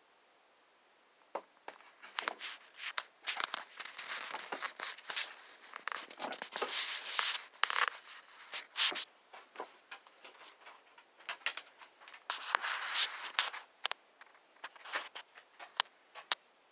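Irregular rustling and scraping with small sharp knocks close to the microphone, starting about a second and a half in.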